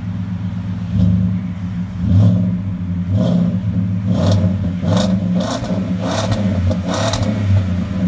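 Ford F-150's 5.0 V8 running through a Flo-Pro true dual exhaust, a mild sport note at the tailpipe, revved in a series of short throttle blips.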